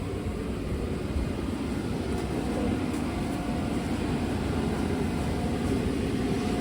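Steady low mechanical drone with a hiss of air from spray-painting equipment running while the first coat of clear is sprayed.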